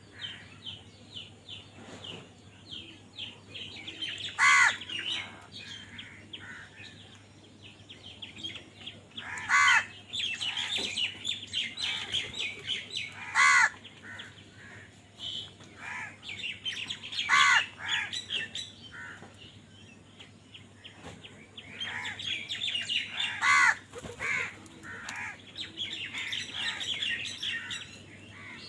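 Crows cawing: about five loud single caws a few seconds apart, over the constant busy twittering of a flock of smaller birds.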